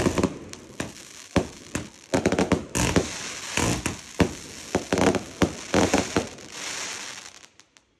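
Multi-shot firework cake (Raining Tears) firing a rapid run of sharp launch thumps and bursts, with crackling stars hissing in between. The shots thin out and the cake goes quiet near the end as it finishes.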